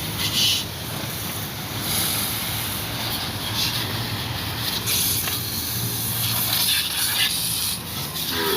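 High-pressure spray jet washing a motorcycle, hissing in bursts of a second or two over a steady low motor hum.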